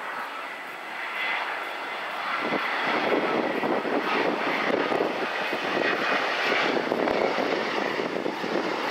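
Airbus A350 on final approach with its landing gear down, its Rolls-Royce Trent XWB turbofans at low approach thrust. The jet noise grows louder as the airliner nears, with a faint high engine whine early on.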